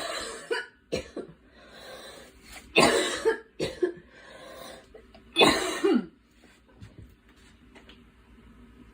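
A girl coughing in three bouts of sharp coughs, with breaths drawn in between; the last bout ends about six seconds in and the rest is quiet breathing.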